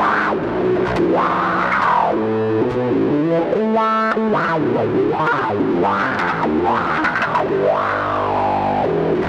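Electric bass guitar, a 1980s Aria Pro SB, played through a Morley 20/20 Power Fuzz Wah pedal with the fuzz placed before the wah. Fuzz-distorted bass notes, with the wah sweeping up and down again and again. A few higher, clearer held notes ring out around the middle.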